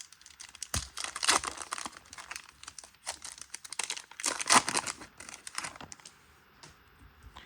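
Panini Contenders trading-card pack being torn open: its wrapper crinkling and tearing in irregular crackles, dying away about six seconds in.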